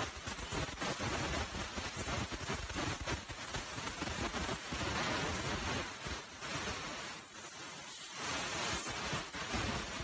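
Pressurised spray hissing through a thin nozzle tube into a Shimano trigger shifter, flushing out the gummed-up grease that lets the shifter's clutch slip gears. The hiss eases briefly about seven seconds in, then picks up again.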